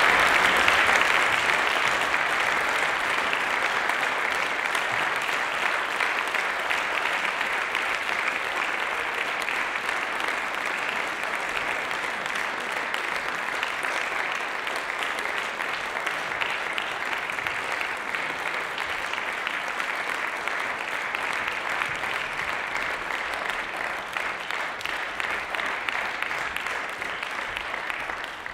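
Audience applauding: a dense, steady clapping, loudest at the start and slowly dying down.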